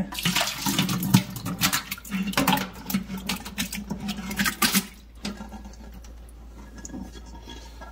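Thick yogurt being poured from a stainless steel pot into an electric butter churn's steel drum: wet slopping and splatting mixed with the clink of the pot on the drum's rim. Dense for about the first five seconds, then it thins out.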